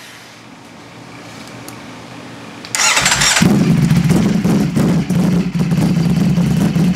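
2020 Ducati Streetfighter V4 S's V4 engine, on a freshly fitted Arrow exhaust with the silencers removed, starting up on its first start. After a quiet pause it fires suddenly about three seconds in and settles into a loud, steady idle.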